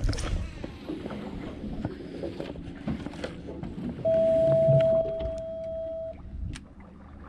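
Low rumble and noise aboard a fishing boat, broken a little over halfway through by one steady, high electronic beep lasting about two seconds, the loudest sound here.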